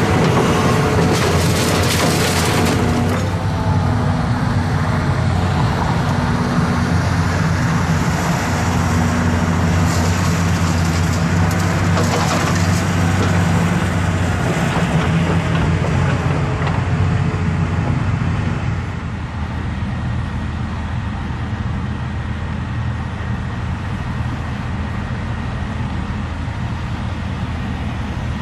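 Diesel engine of demolition machinery running steadily, with scattered knocks and crunches in the first few seconds and again about ten seconds in. The engine drops back about two-thirds of the way through, leaving a lower, steady rumble.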